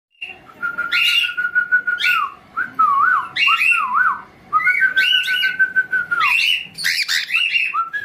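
A man whistling to a cockatiel on his hand, with long held notes that drop away at the end and short dipping notes, while the cockatiel answers with repeated sharp chirps between them.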